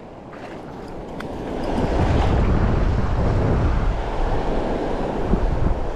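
Wind buffeting the microphone over the wash of sea waves around a kayak, swelling about two seconds in, with a few faint clicks.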